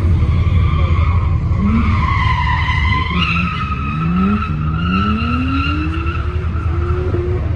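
A car on a slalom course with its tyres squealing as it is thrown through the turns, over a steady low rumble. Its engine rises in pitch several times as it accelerates between the cones.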